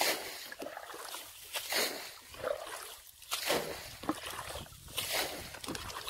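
Water being bailed out with a bucket to drain a pool: a scoop and a splash of thrown water about every second and a half to two seconds, four times in all.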